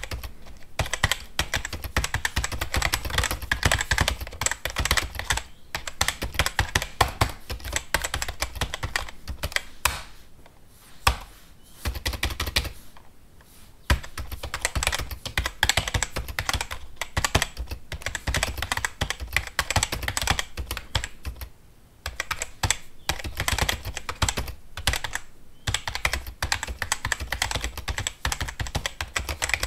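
Fast typing on a computer keyboard: rapid key clicks in dense runs, broken by short pauses about ten, thirteen and twenty-two seconds in, with a single harder keystroke around eleven seconds in.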